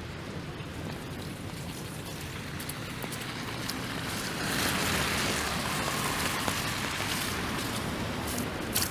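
Wet-street ambience in freezing rain: a steady hiss of rain and slushy traffic, with scattered sharp ticks of drops. The hiss grows louder about halfway through.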